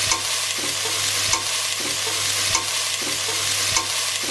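Stir-fry vegetables sizzling in oil over high heat in a stainless steel pot, with a spatula stirring and scraping through them in regular strokes.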